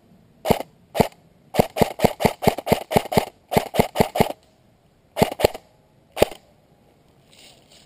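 Airsoft rifle firing single shots in quick runs, about five sharp cracks a second, some eighteen shots in all: two lone shots, a long run, a pause, then a few more, the last about six seconds in.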